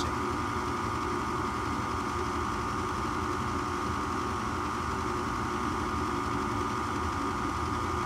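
Gas furnace's draft inducer motor running with a steady hum during an ignition attempt with the gas valve shut off, so no burner flame is heard.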